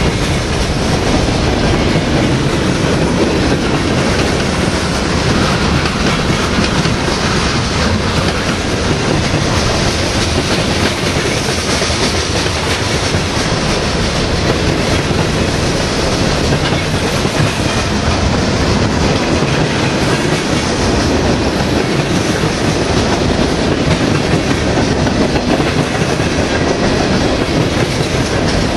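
Norfolk Southern mixed freight train's cars rolling past at close range, steel wheels running over the rails in a steady, loud noise with no letup.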